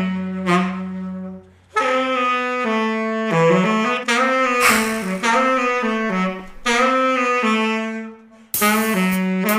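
Background music: a solo melody of held, pitched notes played in phrases, with short pauses about a second and a half in and near the end.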